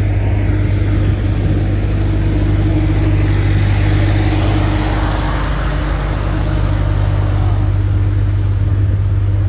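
A steady low engine hum, with a rushing noise that swells in the middle and then fades.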